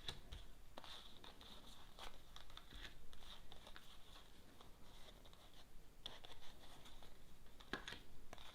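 Faint rustling and scattered soft clicks of a Lenormand card deck being shuffled and cards drawn, over a low steady hiss.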